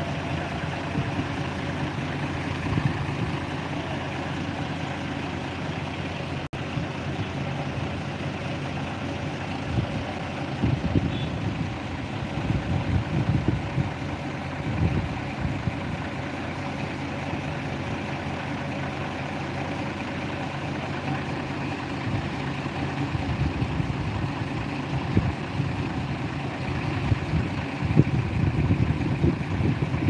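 Heavy diesel truck engines running steadily: a truck-mounted crane's engine and a transit concrete mixer truck. The steady low drone has irregular louder rumbles in the second half.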